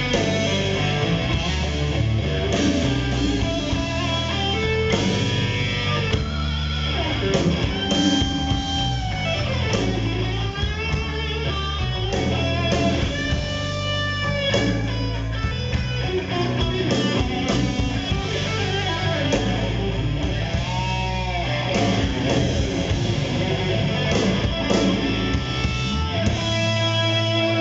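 Heavy metal band playing live: an electric guitar lead with string bends and vibrato over bass guitar and drums.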